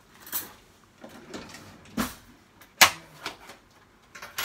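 Kitchen clatter: four or five separate sharp knocks and clacks of things being handled and set down on a counter, the loudest about three seconds in.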